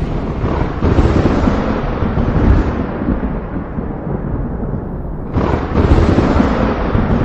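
Thunder in a rainstorm: a crack about a second in that rolls off slowly over several seconds, then another sudden thunderclap about five seconds in that rumbles on, with a further crack right at the end.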